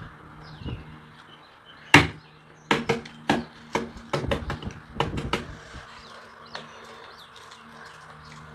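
Hard-boiled egg being cracked against the tabletop: one sharp knock about two seconds in, then about ten quick taps over the next three seconds as the shell breaks. Birds chirp faintly in the background.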